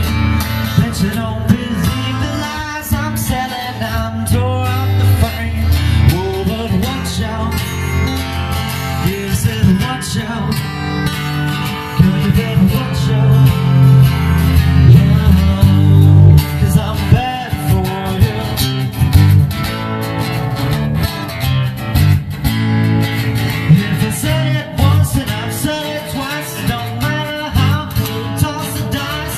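Music: a country-blues song played on guitars, with singing.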